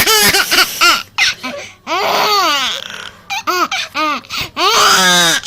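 Seven-month-old baby laughing hard at his father's sneezes, in a string of short, high, squealing bursts of laughter.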